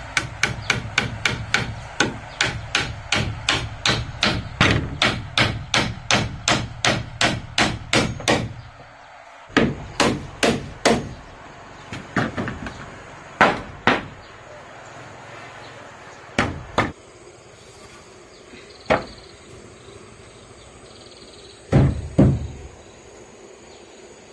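Hammer driving nails into wooden wall planks: a fast, even run of about three blows a second for roughly eight seconds. After that come scattered single and paired blows.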